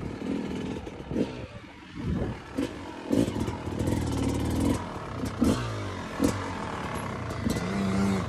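Yamaha YZ250 two-stroke dirt bike engine revving up and down as the throttle opens and closes while riding, with several short sharp clatters.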